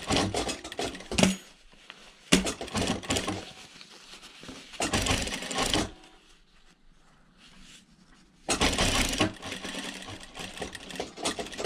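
Sewing machine stitching two layers of cotton mask fabric in short runs. It stops for about a second between runs while the fabric is turned, and the last run near the end lasts about three seconds.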